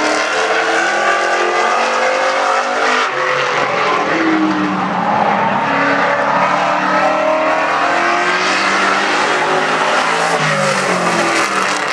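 Street stock race car, a 1970 Chevrolet Camaro, running hard on a qualifying lap, its engine pitch rising and falling as it goes through the turns and down the straights.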